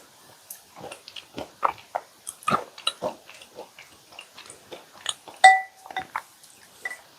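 Close-miked wet chewing and mouth smacks from eating milk-soaked chocolate chip cookies, as irregular short clicks. About five and a half seconds in there is one louder, brief ringing clink.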